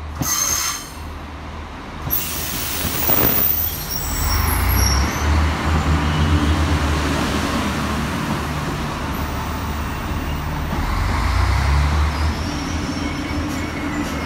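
Irish Rail 29000 class diesel multiple unit arriving and running past close by, its underfloor diesel engines droning low over the rumble of wheels on the rails. Thin high wheel and brake squeals sound a few seconds in as it slows into the platform.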